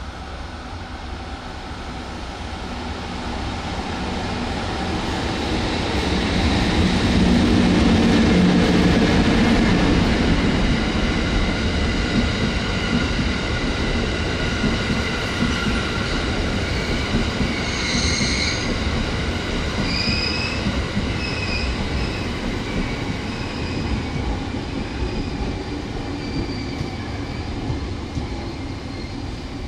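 A train hauled by an EF64 electric locomotive, with Sobu Line E231-series cars behind it, rolling past. The sound builds to a low hum as the locomotive draws level, then the cars' wheels rumble by, with several brief high-pitched wheel squeals past the middle.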